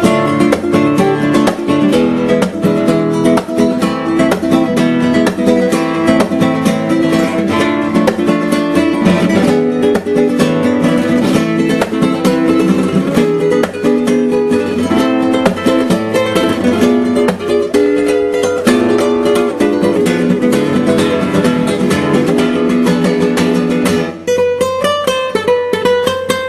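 Background music: strummed acoustic guitar playing a quick, busy rhythm.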